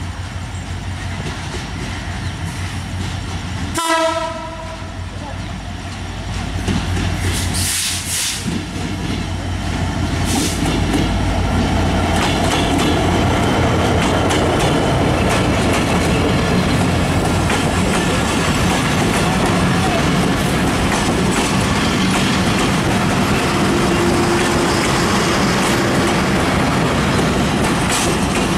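Diesel locomotive passing close, its engine running with a low drone, with one short horn blast about four seconds in. The passenger coaches then roll by with steady wheel clatter on the rails, which grows louder from about ten seconds in.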